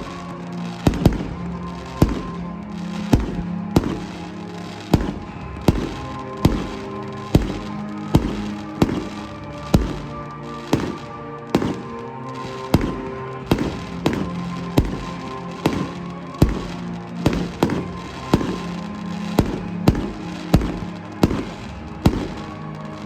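Fireworks bursting in a steady run of sharp bangs, about one to two a second, over music with long held notes.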